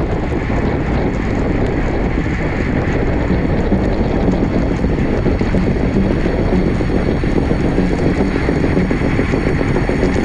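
Steady wind rush buffeting the microphone of a camera riding on a road bike at racing speed, with no clear ticks or other breaks.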